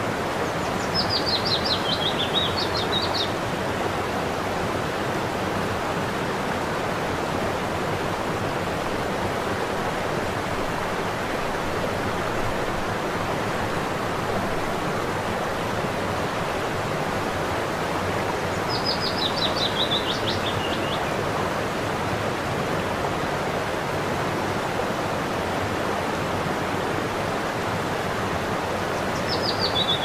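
Kravice waterfalls pouring steadily in an even rush of water. Over it a songbird sings a short falling run of quick notes three times: near the start, a little after the middle, and at the very end.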